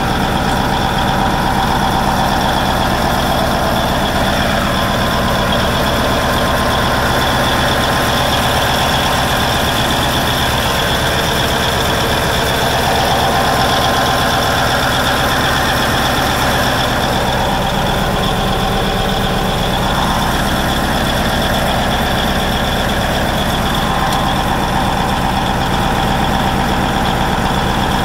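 Caterpillar D9N bulldozer's Cat 3408 V8 diesel engine idling steadily.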